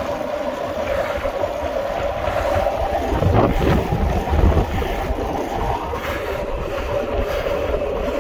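Wind rushing over the microphone and tyre noise on asphalt from a Tour Easy recumbent bicycle ridden at speed: a steady hum with a low rumble that swells for a second or two in the middle.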